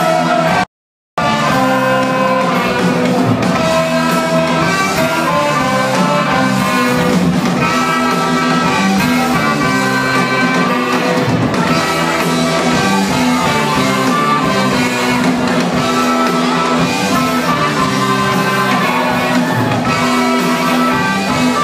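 Live blues-rock band playing, with guitar and drums, recorded in a large hall. The sound cuts out completely for about half a second roughly a second in, then the music carries on.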